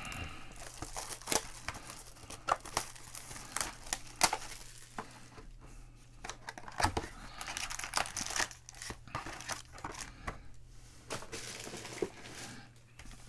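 Wrapping on a box of 2019 Panini Chronicles football card packs being torn and crinkled as the box is opened, then the foil packs handled: a run of sharp crinkles and rips.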